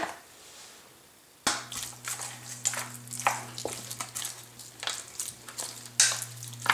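Chopsticks stirring seasoned raw chicken pieces in a stainless steel bowl: wet squelching of the meat and irregular clicks and scrapes of the sticks against the bowl, starting about a second and a half in. A steady low hum starts at the same moment and runs under it.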